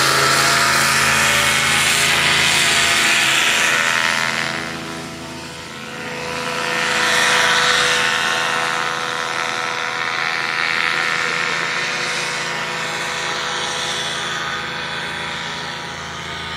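Paramotor engine and propeller running at climb power, a steady drone. It dips briefly about five seconds in, comes back up, then slowly fades as the paraglider flies off.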